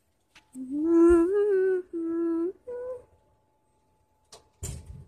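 A person humming three held notes, the first sliding up into it and the last one short and a little higher. A click comes just before, and a short thump near the end.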